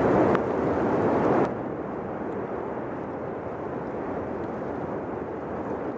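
Steady rushing noise of the erupting Cumbre Vieja volcano and its lava flow, loud at first, then cutting abruptly about one and a half seconds in to a quieter steady rush.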